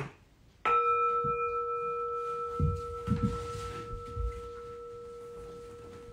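A singing bowl is struck once, about half a second in, and rings on with a low steady hum and higher overtones that slowly fade; the highest overtone dies out after about two seconds. A few soft low thumps sound underneath around the middle.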